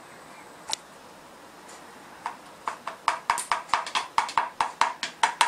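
Quick footsteps on a hard floor, about four a second, starting a couple of seconds in and getting louder as they come closer. A single click comes about a second before them.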